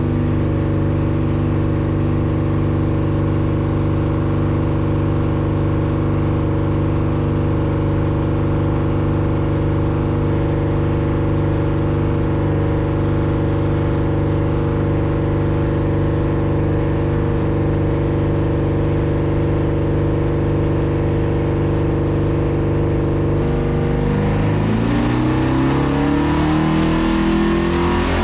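Twin-turbo LS V8 in a Ford Fairmont running steadily at about 2,900 rpm on a hub dyno, heard from inside the cabin. Near the end the revs begin to climb as the dyno ramps the engine up.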